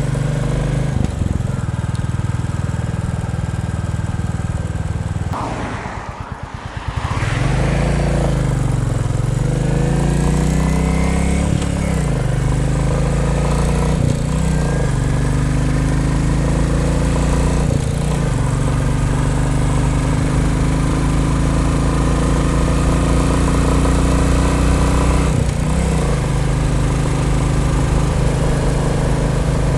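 Royal Enfield Bullet 350's single-cylinder engine running under way. The revs drop briefly about six seconds in, then climb and settle again. The engine is new and not yet run in, the state in which owners say a light rattling buzz under load is normal.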